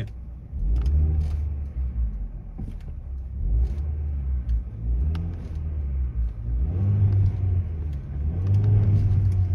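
Hyundai Solaris engine with a swapped-in Kia Ceed variable-geometry intake manifold, heard from inside the car as it drives and pulls, swelling louder and higher about two-thirds of the way in and again near the end. No intake-flap knock is heard: the flap's rattle has been cured by recalibrating the engine software.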